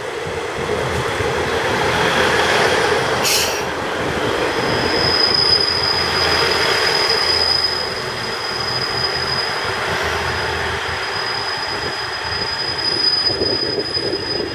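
Two-car KiHa 110 series diesel railcar pulling into the station past close by, its wheels and running gear rumbling. There is one sharp click about three seconds in, then a steady high-pitched squeal from about four seconds in until near the end as the train brakes to a stop.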